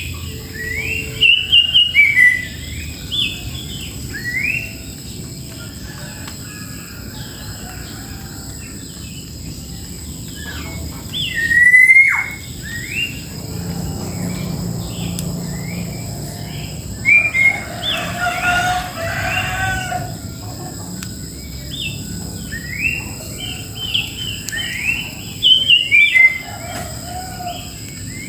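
Birds chirping: many short, quickly rising chirps, repeated irregularly, over a steady high-pitched whine.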